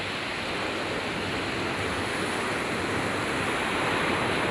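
Ocean surf breaking on the shore: a steady rushing wash of waves that swells a little near the end.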